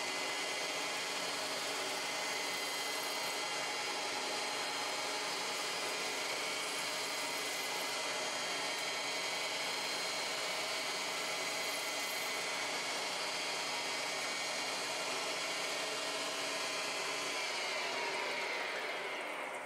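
CNC lathe running steadily, its spindle whining as it turns and cuts an aluminium part under flood coolant spray. About two seconds before the end the spindle winds down, its whine falling in pitch as it stops.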